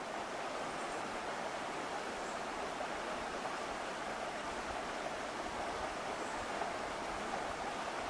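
Shallow mountain stream running over flat rock slabs: a steady rush of water that holds even throughout.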